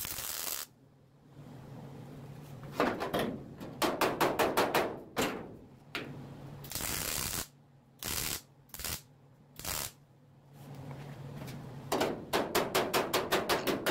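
MIG welder laying a series of plug welds through punched holes in a car's quarter-panel flange: short bursts of arc crackle, a second or two each, with pauses between welds.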